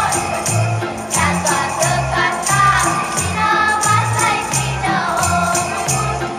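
A Romanian Christmas carol (colind) sung by voices over a backing with a stepping bass line and jingle bells shaken on a steady beat.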